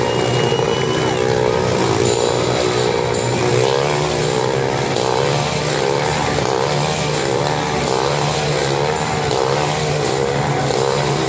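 Motorcycle engines running inside a globe-of-death stunt sphere, their pitch rising and falling in a steady repeating wave as the bikes circle the cage.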